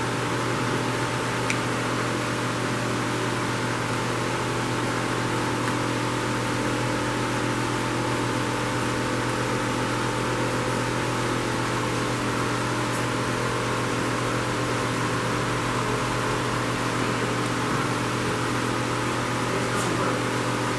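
Electric fan running steadily: a constant motor hum under rushing air, with a few faint light clicks.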